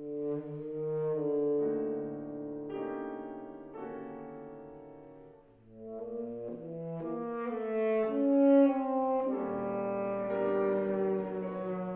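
Tenor saxophone playing a slow, sustained melody with piano accompaniment. The line fades to a brief break about five seconds in, then swells up again to its loudest.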